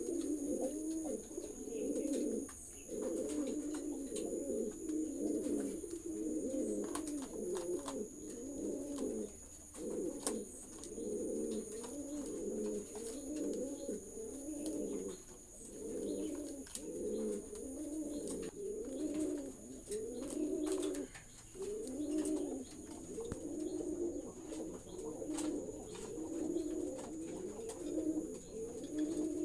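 Several caged fancy pigeons cooing, one low coo after another, overlapping with no break.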